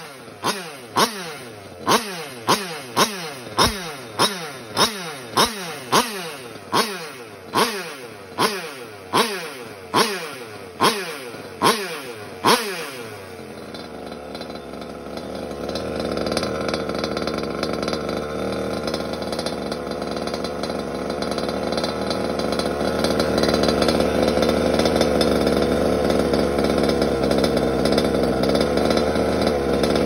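Water-cooled Zenoah two-stroke engine on a GoPed Sport scooter being blipped over and over. Each blip jumps up sharply and falls away, about one and a half a second, for the first dozen seconds. Then it settles into steady running, with the revs held higher and stepping up twice, at about a third and halfway through.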